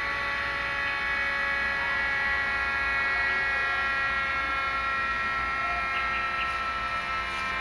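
Running HHO oxyhydrogen torch rig giving a steady hum made of several high tones, drifting slightly lower in pitch over the seconds.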